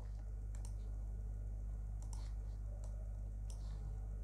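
A few faint, spaced clicks from a computer mouse or pen tablet while tools are picked and the writing is erased, over a steady low electrical hum.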